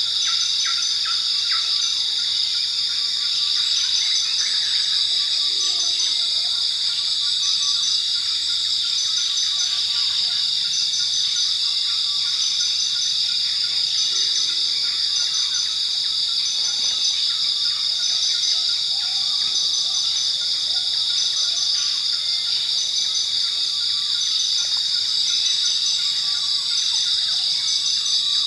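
Forest night ambience: a dense, steady, high-pitched chorus of crickets and other insects with a fast pulsing trill, and scattered short bird chirps over it.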